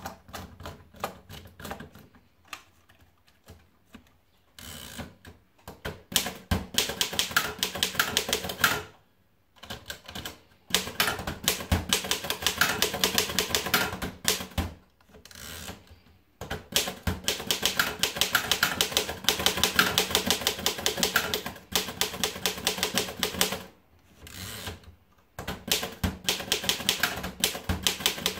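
Erika Model S manual typewriter being typed on: a few scattered key strikes at first, then runs of rapid, sharp keystrokes broken by short pauses.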